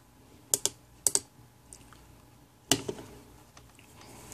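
A few sharp clicks from hands working bench test equipment: a double click, another double click, then a single one about two and a half seconds in.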